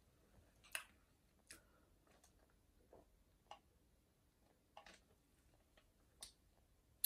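Near silence broken by a handful of faint, short clicks at irregular intervals: quiet chewing and mouth noises while eating.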